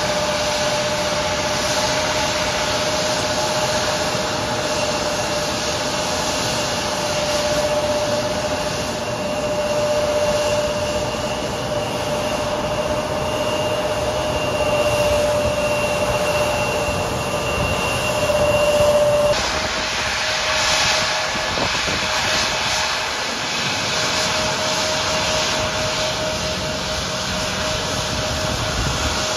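Turbofan engines of taxiing regional jets whining steadily at idle over a constant rushing noise. About two-thirds of the way through the sound changes abruptly to a second jet with a similar whine.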